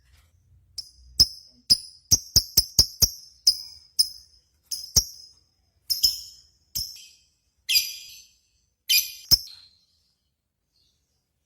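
A bird's sharp, high chip calls: about a dozen short notes in an uneven series, some in quick runs, with a pause of about a second between later ones.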